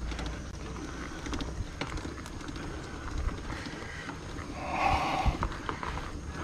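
Fat bike being pedalled up a steep concrete climb: tyre and drivetrain noise with scattered sharp clicks, and a louder rushing sound about five seconds in.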